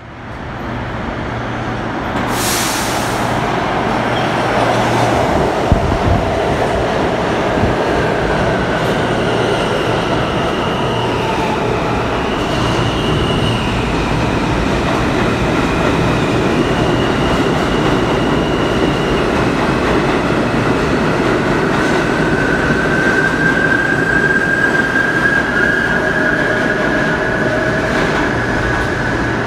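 R160 subway train pulling into an underground station. A loud rumble of wheels on rails builds over the first few seconds and holds steady, with a sharp clack about six seconds in and high squealing tones that come and go, including a long steady one near the end.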